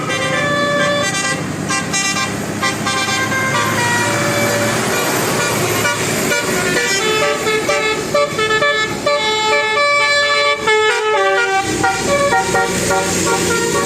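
Basuri-type 'telolet' multi-tone bus horn playing a fast tune of short notes that step up and down in pitch, over vehicle engine noise.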